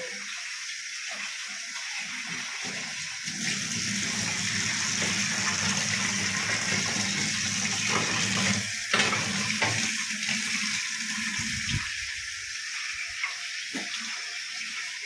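Food sizzling in hot cooking oil in a pan: a steady hiss with a low hum underneath through most of it.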